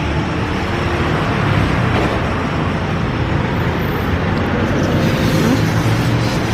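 Steady road traffic noise: a continuous rush of passing vehicles with a low engine hum underneath.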